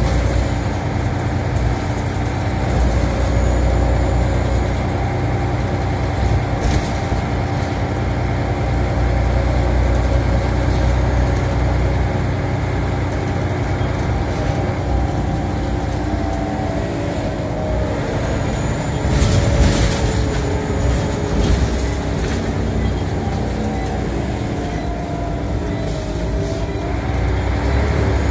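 Scania Omnicity bus on a Scania L94 chassis heard from inside the passenger saloon while under way: a steady engine and drivetrain drone with a whine that falls and rises again in the second half as the bus changes speed. A few short rattles from the interior, around a quarter of the way in and again about two thirds through.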